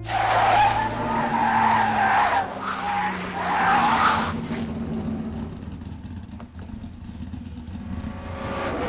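Race car tyres screeching in a long, hard braking skid that starts suddenly and dies away after about four and a half seconds into a low rumble.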